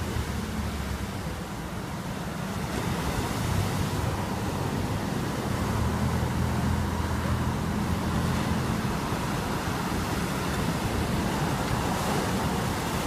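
Shorebreak surf breaking and washing up a sand beach: a steady rush of waves, heaviest in the low end, easing briefly about a second in, then building again.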